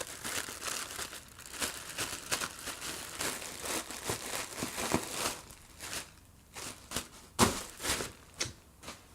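Plastic bubble-bag packaging being crumpled and handled: a dense run of irregular crinkling, thinning out after about six seconds into a few sharp, louder cracks.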